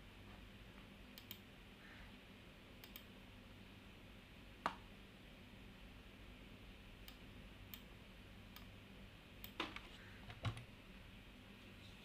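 Computer mouse clicking: a handful of short, sharp, scattered clicks, the loudest nearly five seconds in and a few close together near the end, over a faint low hum.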